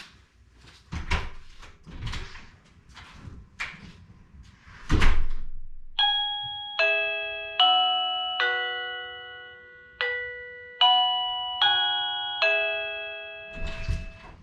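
A few knocks and a loud thump like a door shutting. About six seconds in, a plug-in wireless doorbell receiver plays a chime tune of eight ringing notes in two phrases of four, each note struck and fading. It is loud enough to be heard outside through the door.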